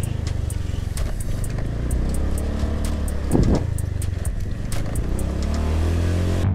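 Motor scooter running steadily under way, its engine hum mixed with road and wind noise, with a short louder rush about halfway through. Faint background music with a ticking beat plays over it.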